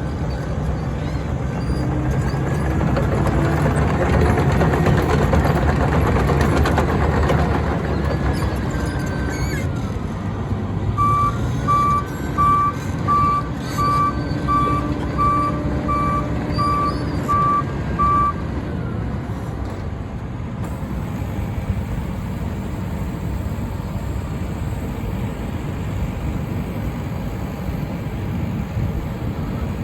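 Wirtgen W 200i tracked cold planer running its diesel engine, louder for the first several seconds. Its reversing alarm beeps steadily about eleven times in the middle, the sign that the machine is backing up.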